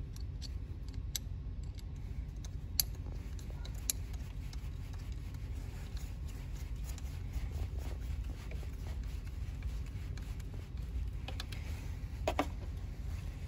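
A screwdriver turns a worm-gear hose clamp on a small coolant hose, giving scattered light metallic clicks and scraping. A steady low hum runs underneath.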